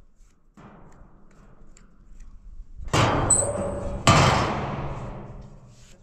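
Two loud thumps on a large plastic water tank as its lid is worked loose and taken off, about a second apart near the middle, each ringing on and dying away over a second or so.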